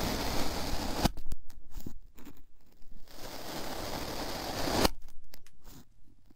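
Metal tube pressed down into kinetic sand twice, each push a gritty crunching that ends in a sharp click.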